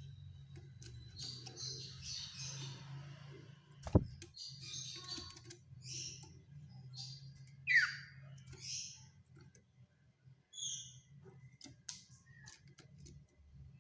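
Common iora (sirtu/cipoh) calling: short high chirps and trills, with one loud whistle sweeping sharply downward about eight seconds in. A sharp click about four seconds in, and a low steady hum underneath.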